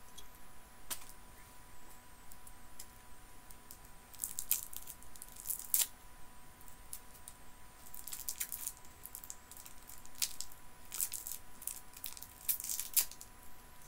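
Plastic lollipop wrapper being picked at, crinkled and torn off by hand in irregular crackling bursts. The wrapper is stuck fast to the melting candy.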